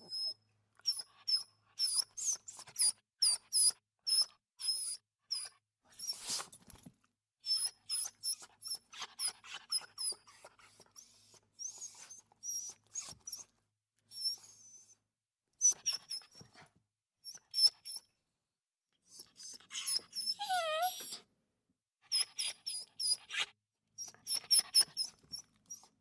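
Small dog whimpering: a series of short, high-pitched whines in groups with pauses between them, and one longer, lower whine about three quarters of the way through.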